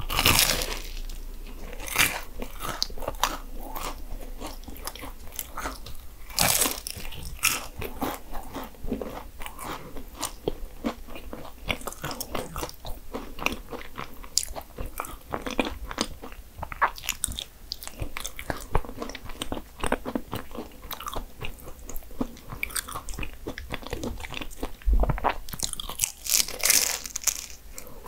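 Bites into flaky puff-pastry Portuguese egg tarts (nata), crackly crunches of the crust followed by chewing. The loudest bites come just after the start, about two seconds in, around six seconds in, and near the end.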